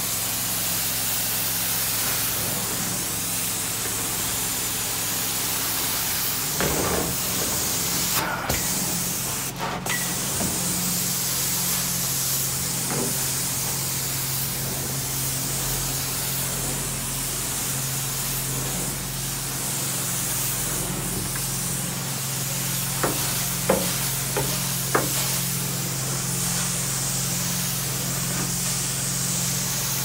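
Carpet-cleaning extraction wand spraying hot water into the carpet and sucking it back up: a steady hiss and rush of air over a steady low machine hum. A few short sharp clicks come near the end.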